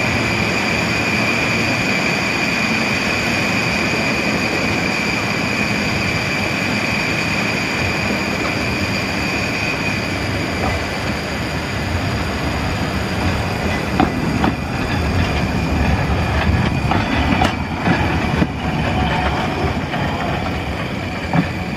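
Cable-hauled Great Orme Tramway tramcar running toward the listener on its rails. A steady high whine for about the first ten seconds gives way to a low rumble and a few sharp knocks and clicks as the car comes close.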